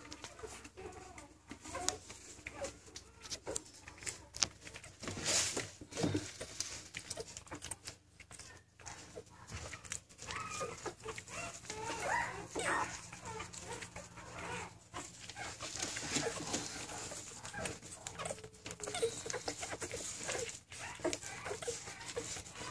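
Five-day-old Dutch Shepherd puppies nursing and giving small, short, wavering squeaks, over scattered clicks and rustles.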